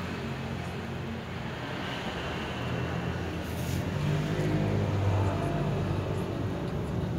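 A steady low mechanical rumble with a hum, like an engine running, swelling louder about halfway through, with a brief hiss near the middle.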